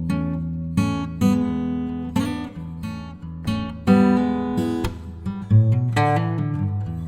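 Background music: acoustic guitar strumming and plucking chords, a new chord or note every half second to a second.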